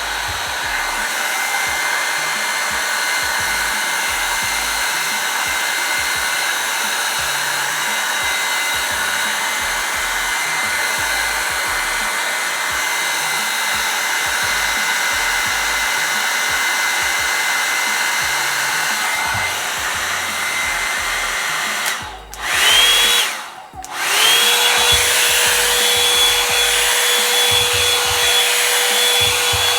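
Revlon One-Step hair dryer brush blowing steadily with a motor whine. About 22 seconds in it cuts out briefly twice, then starts again with a different whine.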